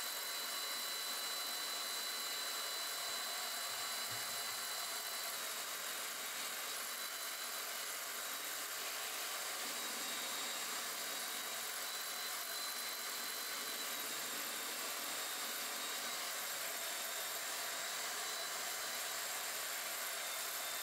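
Handheld belt sander, clamped upside down as a stationary sander, running steadily while the edge of a birch plywood longboard deck is pressed against the belt to sand it to shape. A thin high whine rides over an even whirring rasp.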